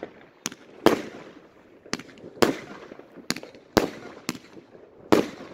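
Consumer fireworks cake firing aerial shells in sequence: about eight sharp bangs of the bursting shells, spaced irregularly from half a second to a second apart, each followed by a short echo.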